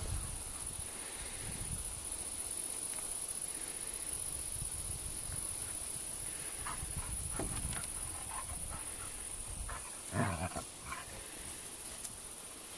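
Siberian huskies play-growling as they wrestle, a low rumbling growl through most of the stretch, with a louder growl about ten seconds in.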